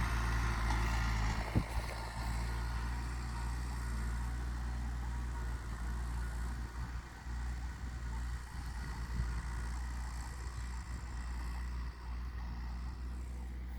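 New Holland TT75 tractor's diesel engine running steadily under load while ploughing, with a short knock about a second and a half in.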